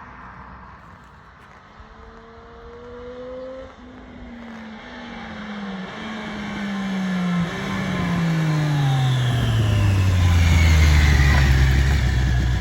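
2023 Triumph Street Triple 765 RS's inline three-cylinder engine drawing near. Its note rises briefly, then falls in several steps as it gets louder, and it settles into a steady low idle close by for the last few seconds.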